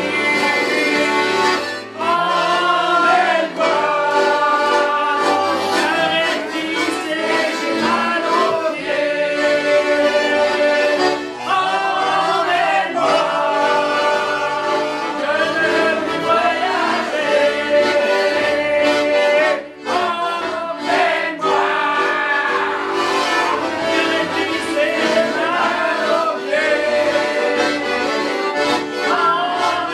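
Accordion playing a folk-song melody as an instrumental interlude between sung verses.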